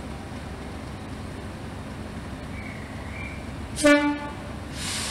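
Class 37 diesel locomotive's horn giving one short toot about four seconds in, the loudest sound, over the low steady rumble of the approaching locomotive. A hiss starts near the end.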